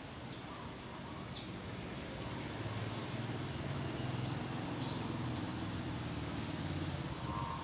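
A motor vehicle's engine running nearby, growing louder about two seconds in and holding there as it approaches. A few short, high bird chirps sound over it.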